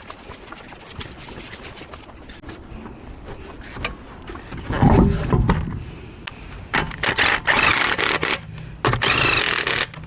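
A heavy, low knock about halfway through, then two loud bursts of an impact wrench spinning wheel nuts, the first about two seconds long and the second about one second.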